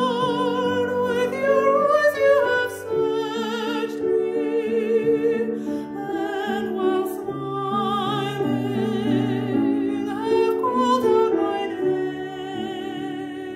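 A hymn sung with a wide vibrato over steady instrumental accompaniment of held lower notes.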